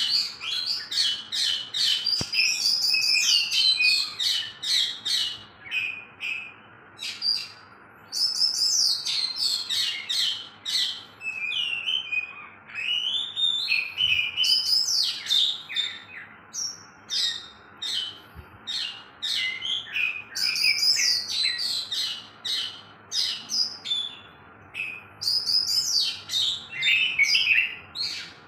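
Caged oriental magpie-robins (kacer) singing: rapid, varied strings of sharp notes and whistles, pausing briefly a few times.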